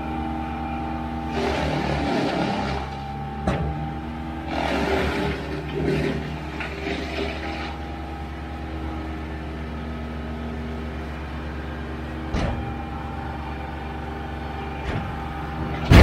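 Kubota compact tractor's diesel engine running steadily, working harder in two louder stretches in the first half as the loader and grapple carry a big oak log. A few small knocks follow, then right at the end the log drops into a trailer with a heavy thud.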